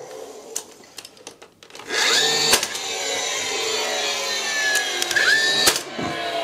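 Cordless pin gun driving panel pins through timber moulding. Its motor spins up with a rising whine and keeps running, and it fires twice, sharp cracks about three seconds apart, with light handling clicks before the motor starts.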